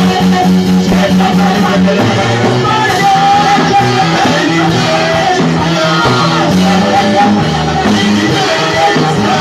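Music with singing: a band playing with held bass notes that change every couple of seconds.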